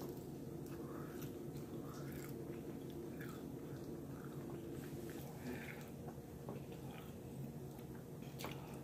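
A person chewing and biting a mouthful of breaded chicken tender with barbecue sauce: quiet mouth sounds with scattered small clicks.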